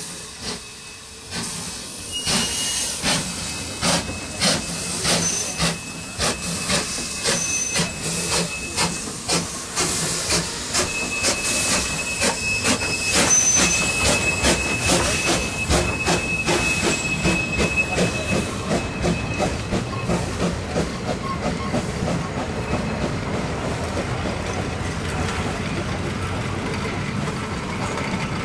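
A10 No. 6, an 1865 Neilson-built tank steam locomotive, pulling away with its train: exhaust chuffs and hissing steam, the beats quickening as it passes close by. A faint thin high tone is held for several seconds midway. Then the coaches roll past with a steady rumble.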